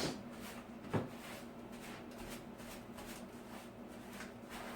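Faint rustling of a new paintbrush's bristles being worked by hand to loosen dust and debris, with one light knock about a second in.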